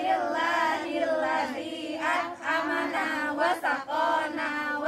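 A group of women chanting a prayer together in unison. The melodic recitation runs on without a pause.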